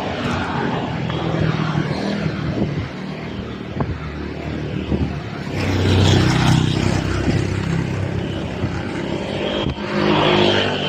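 Motor vehicle engines passing, swelling louder about six seconds in and again near the end.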